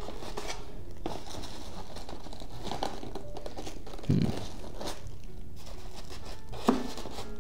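Clear plastic wrapping crinkling as a wrapped porcelain building is worked out of a styrofoam packing case, with two dull knocks, about four seconds in and near the end, over faint background music.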